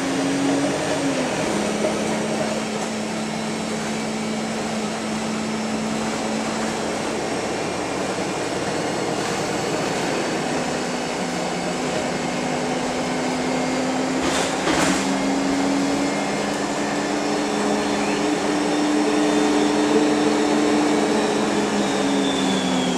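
Onboard a Wright StreetLite single-deck bus on the move: a steady engine and road drone whose pitch creeps upward and drops back, about a second in and again near the end. A brief double knock a little past the middle.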